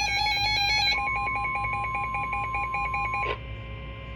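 NOAA Weather Radio warning alert tones: a rapid pulsing electronic beep, about six beeps a second. About a second in, the steady high-pitched weather alert tone joins it. Both cut off suddenly about three seconds in, leaving only a faint hum.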